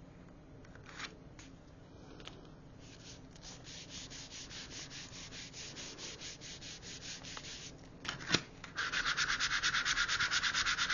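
A hand tool rubbed rapidly back and forth over paper, smoothing freshly glued paper flat onto a notebook cover. The strokes come several a second, faint at first and much louder near the end, after a single sharp knock.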